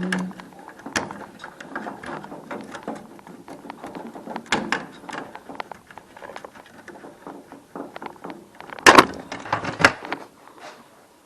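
Hand disassembly of a washing machine: scattered clicks, knocks and rattles of tools and panels, with a loud burst of clattering about nine seconds in.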